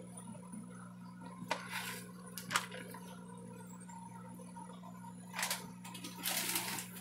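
Steady low hum with a few brief rustling, scraping sounds: two about two seconds in, and two more near the end, the last a little longer.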